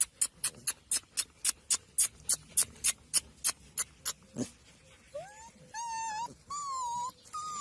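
A dog whining in several high, wavering cries from about five seconds in. Before that comes a quick, even run of sharp clicks, about three or four a second.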